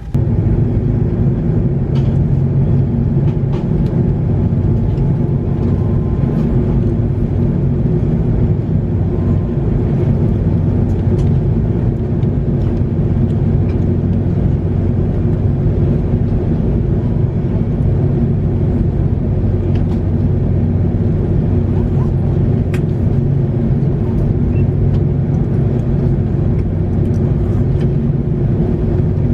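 Loud, steady engine drone with a low, even hum of several tones, starting suddenly and holding level throughout.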